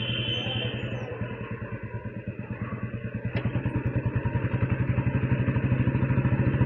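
Royal Enfield Bullet's single-cylinder engine and exhaust running under way, with a fast, even pulsing beat. It gets louder a little after halfway as the throttle opens.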